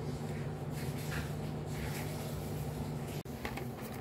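A low steady hum with soft faint rustles; about three seconds in there is a sudden break, followed by short crisp rustles and clicks of hands handling a cardboard phone box and its paper insert.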